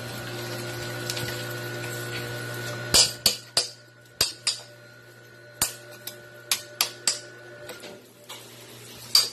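Sharp clacks of a kitchen knife and a scrub brush knocking against live crabs' shells and the sink, about ten irregular hits. They start about three seconds in, after a steady hum.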